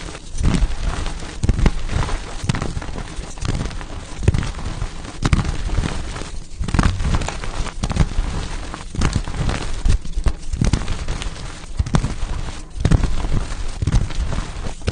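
Blocks of pasted gym chalk being crushed, a steady run of crunches close together with gritty crackling crumble between them.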